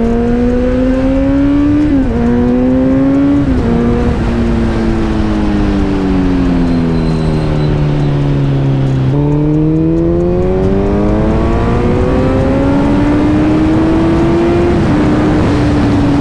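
KTM 790 motorcycle's parallel-twin engine under way. It revs up through two quick upshifts in the first four seconds, the revs then fall steadily for about five seconds, and it pulls up through the revs again, with a further shift near the end, over steady wind noise.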